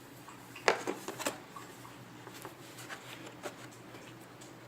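Light clicks and knocks of steel punches being handled in the tool kit's plastic storage case, with two sharper clicks in the first second and a half and fainter ticks after.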